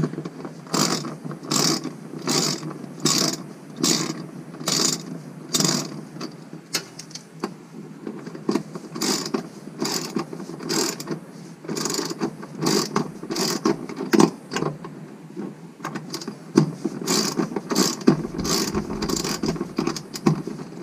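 Hand socket ratchet on a long extension clicking through repeated strokes while undoing a bolt. The strokes come about one a second at first and then quicker and in bunches.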